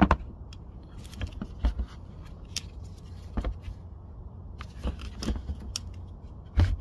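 Scattered sharp plastic clicks and knocks from handling a car's blower motor and its plastic squirrel-cage fan wheel, about ten in all, the loudest at the start and near the end, over a steady low background rumble.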